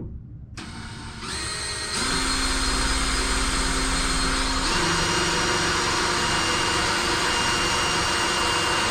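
Power drill boring a 1/8 inch pilot hole into the wall, a steady loud whir that shifts pitch about halfway through. The pilot hole is a check for a stud behind the wall.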